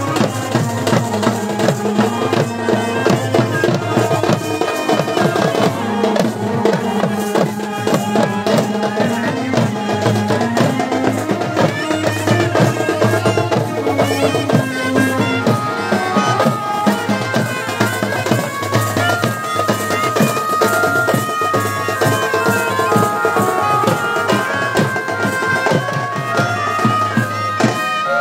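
Traditional folk wedding band: a shrill reed pipe plays a melody over two-headed barrel drums (dhol) beaten in a fast, dense rhythm.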